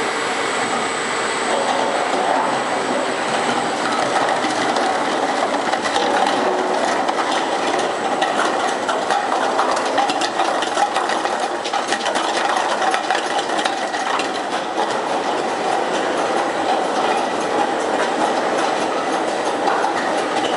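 Large fully automatic bottle unscrambler running: a steady mechanical clatter with a dense stream of small clicks as bottles are carried up the elevator belt, tumble onto the sorting disc and are fed out along the conveyor.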